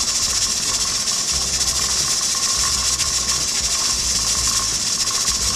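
Pressure canner's weighted regulator (wobbler) rocking and rattling on its vent while steam hisses out steadily: the sign that the canner is at pressure, here a little above 10 pounds.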